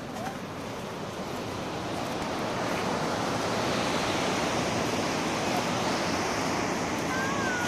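A steady outdoor rushing noise that swells over the first three seconds and then holds.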